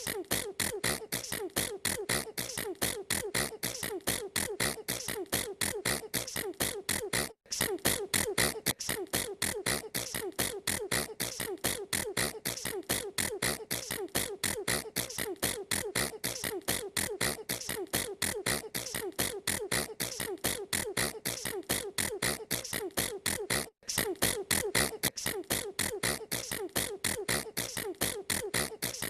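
A girl sneezing over and over in quick succession, several short sneezes a second in a steady, unbroken run, cut by two split-second gaps.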